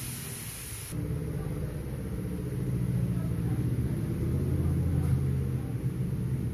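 Food sizzling in a hot wok for about the first second, then suddenly a low rumble with a humming tone that shifts in pitch, growing louder and cutting off abruptly near the end.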